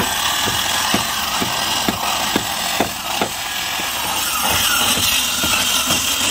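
Hammer blows on wood at a steady pace of about two a second, clearest in the first half, over the continuous noise of a power tool running.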